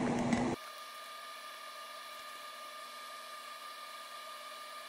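Faint steady hum and hiss of room tone with a few thin, high, steady tones. A louder fan-like background noise cuts off abruptly about half a second in.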